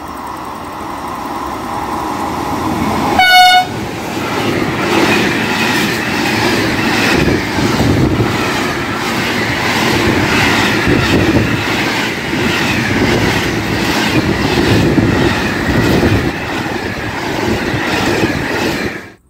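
A freight train of container flat wagons, hauled by a Captrain E494 electric locomotive, passing close by. About three seconds in there is one short horn blast, the loudest moment. After it comes the steady running noise and rhythmic clickety-clack of the wagons' wheels over the rail joints, which stops abruptly near the end.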